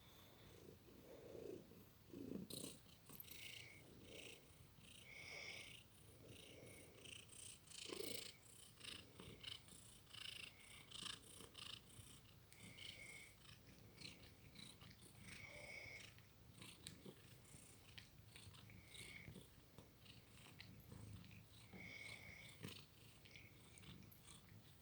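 A sleeping cat snoring softly: slow, faint breaths every second or two, with small clicks and brief squeaky notes in its nose.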